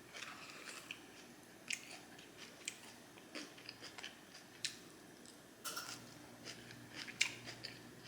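Close-up eating sounds: a person chewing and biting fast food, with irregular small crunches and clicks, the sharpest one about three quarters of the way through.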